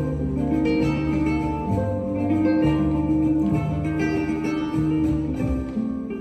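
Flamenco guitar music, a steady run of plucked and strummed notes, getting a little quieter near the end.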